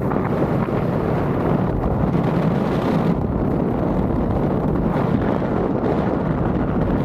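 Wind rushing over the microphone of a camera moving downhill with a skier, with the hiss and scrape of skis carving across packed snow. The noise is steady, with no separate knocks.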